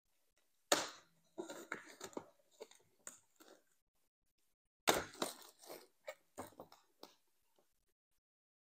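Plastic shrink wrap on a cardboard trading-card box crinkling and tearing as it is peeled off, in two spells of rustling, the second starting about five seconds in.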